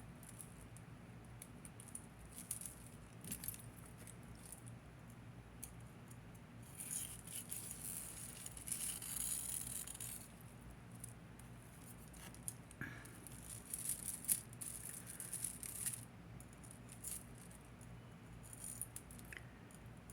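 Tangled costume-jewelry chains and necklaces jingling and clicking softly as they are picked apart by hand, in uneven spells with busier stretches about a third of the way in and again past the middle.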